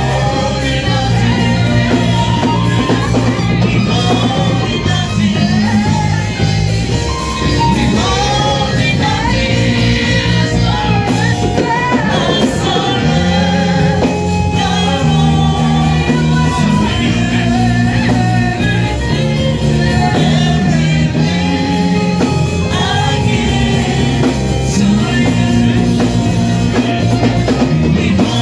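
Live worship music with singing: a band with bass and guitar playing a steady song while voices sing the melody.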